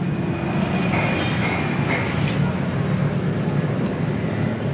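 Steady low rumble of motor vehicle traffic, with a few faint clicks.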